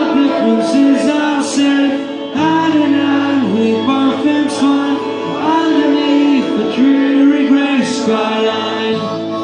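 Live acoustic rock song: strummed acoustic guitar and electric guitar, with a man singing.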